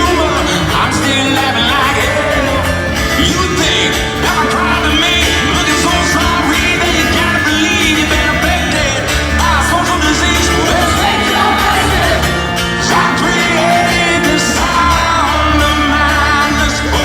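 Rock song playing loud, with a male singer over distorted guitars, bass and drums.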